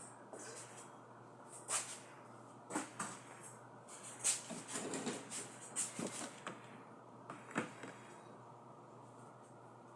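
Kitchen things being handled: a handful of separate knocks and clicks, like cupboard doors, a pan and containers being set down, over a low steady hum.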